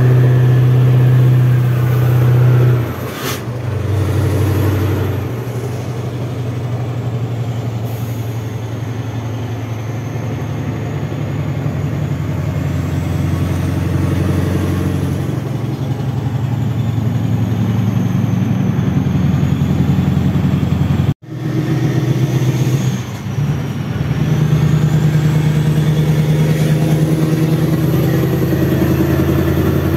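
Scania V8 truck engine running under way, heard from inside the cab. Its note drops about three seconds in, then climbs slowly. The sound cuts out for an instant past the two-thirds mark and dips once more just after.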